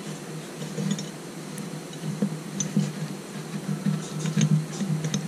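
Twisted rope being handled and pulled through its loops as a knot is tied: uneven rubbing and scraping with scattered light ticks.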